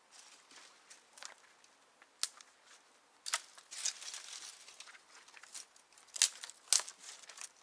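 Irregular crunching and crackling: a scattered run of sharp snaps and rustles, the two loudest near the end.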